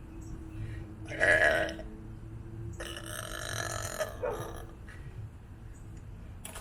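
A person burping: a short, loud burp about a second in, then a longer, drawn-out one from about three seconds in.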